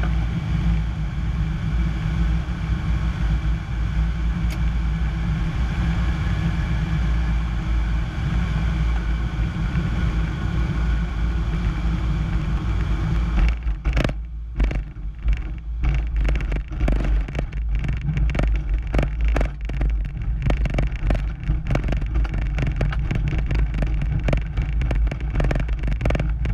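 Piper PA-25-235 Pawnee's engine and propeller running steadily, heard from inside the cockpit with a loud low hum and rushing air. About 14 s in, the rushing air drops away and irregular knocks and rattles begin, typical of the tailwheel plane touching down and rolling over a grass field.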